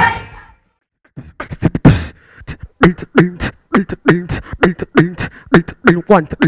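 Beatboxing into a handheld microphone: sharp mouth-made kick and snare hits in a quick, steady rhythm, with short pitched vocal tones woven in. It starts about a second in, just after a loud band track fades out.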